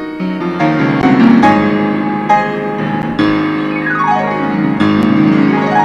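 Yamaha grand piano played solo: chords and melody, with a quick run down the keyboard about four seconds in and a run back up near the end.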